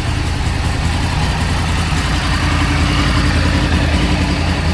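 Yamaha R1's inline-four engine idling steadily just after its first start, freshly filled with oil, coolant and fuel after the bike had stood unused for nine years.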